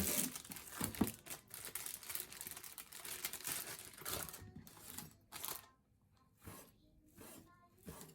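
Faint crinkling and rustling of something being handled, with a few soft clicks, thinning out over the last few seconds.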